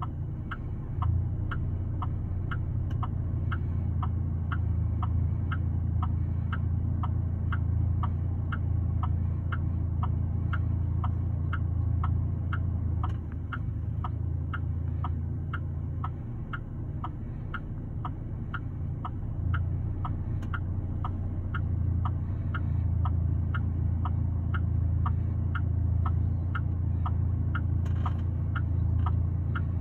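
Car's indicator flasher ticking steadily, about two clicks a second, over the low steady hum of an idling engine.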